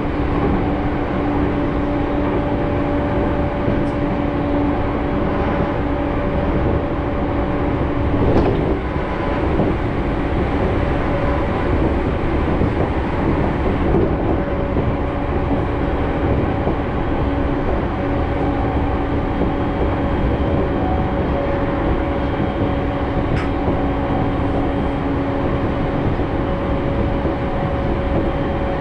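Electric commuter train running at a steady speed, heard from inside the passenger car: a continuous rumble of wheels on the track with a steady hum. One short knock sounds about eight and a half seconds in.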